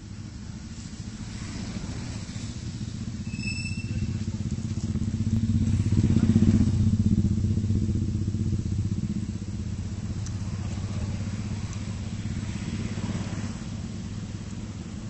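Engine hum of a passing motor vehicle: a steady low drone that grows louder to a peak about six and a half seconds in, then fades. A brief high chirp sounds about three and a half seconds in.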